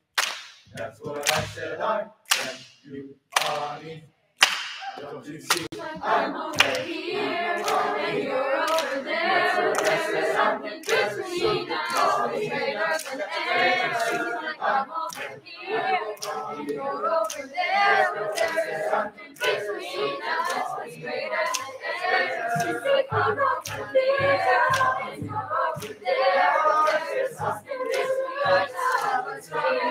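Youth choir singing in parts with rhythmic hand claps about twice a second. The claps come alone for the first four seconds or so before the voices join.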